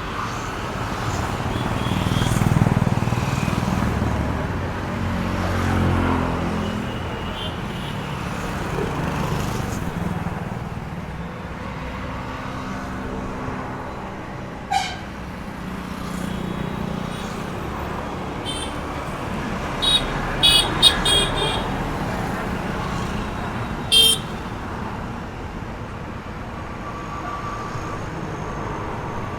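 Steady roadside traffic. A motor vehicle's engine passes close in the first few seconds, its pitch rising. Short horn beeps sound once about halfway through, then several in quick succession a few seconds later, then once more.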